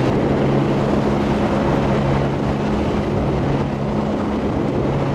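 Outboard motor running steadily as an inflatable boat cruises across calm water: an even low drone under a rush of wind and water.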